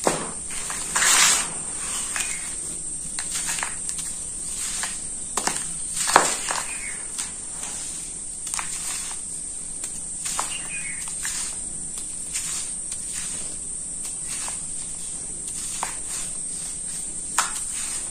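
Hands scooping, rubbing and crumbling dry sand-cement powder in a bowl: irregular soft gritty rustles and sifting crunches, the loudest about a second in and about six seconds in.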